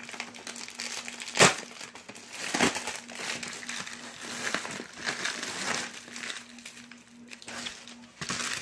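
Plastic Amazon poly mailer bag crinkling and rustling as it is handled and pulled open by hand, in irregular crackles with a sharp loud crackle about a second and a half in.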